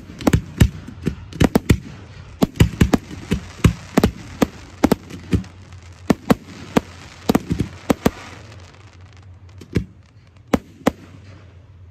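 Aerial fireworks display: shells bursting in a rapid volley of sharp bangs, several a second, over a hiss of crackling stars. The volley thins out about eight seconds in to a few scattered bangs.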